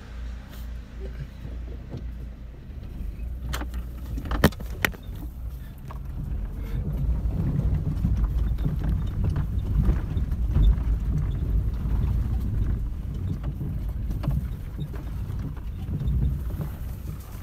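Motor vehicle driving along a rough dirt track, heard from inside the cab: a low rumble with rattling that grows stronger about halfway through, and a few sharp knocks a few seconds in.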